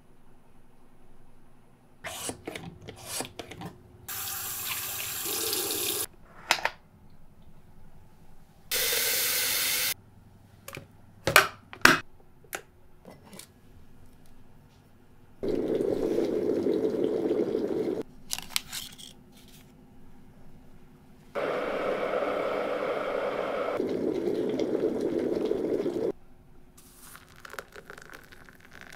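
Hot water being poured from an electric kettle into a ceramic cup, in two longer steady pours in the second half, with shorter pours earlier. Rustles and sharp clicks from the cup and packets being handled come in between.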